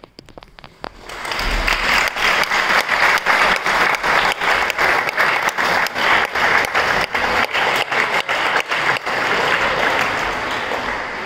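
Audience applauding: a few scattered claps, then full applause from about a second in, with some sharp single claps standing out, thinning near the end.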